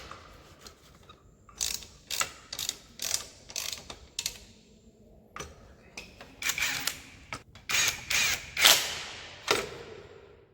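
Metal tools and parts clicking and clattering in short, irregular bursts during hand work on a motorcycle's chain and sprocket. The loudest clatter comes near the end, ringing briefly.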